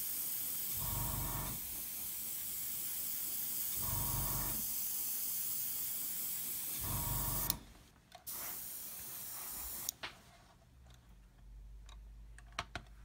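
Airbrush spraying paint onto a plastic model in a steady hiss, with three louder swells about three seconds apart. The spray stops about seven and a half seconds in, comes back for a short burst, and cuts off near ten seconds, followed by a few light clicks.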